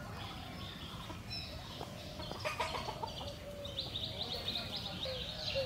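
Small birds chirping in quick runs of short high notes, thickest about four seconds in, with a chicken clucking low underneath near the end.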